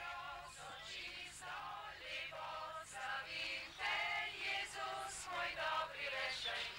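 A small group of people singing together without instruments, fairly faint, the voices mostly high.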